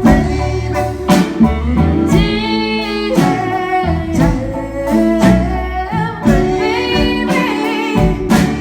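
Live band playing a low-key country-pop song, with guitars, keys, bass and drums under a sustained sung vocal line in the chorus.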